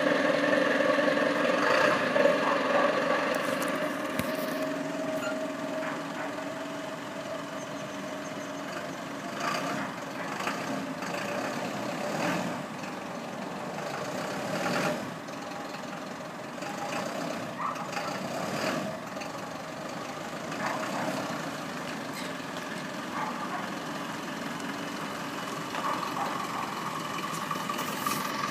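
Truck engine idling with a steady hum, louder at first and fading over the first several seconds, with a few short knocks later on.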